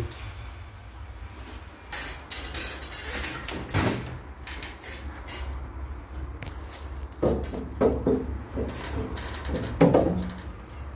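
Metal scraping and clunking as a finned main heat exchanger is handled and fitted into a gas combi boiler's casing, with a run of sharper knocks in the second half, the loudest near the end.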